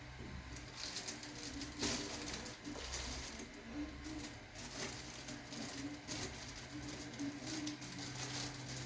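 40 W CNC laser engraving and cutting machine running: a steady low hum with irregular crackling and rustling over it from about a second in.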